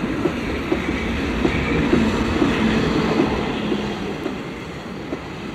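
Narrow-gauge train running on the rails, a steady noise that eases slightly toward the end.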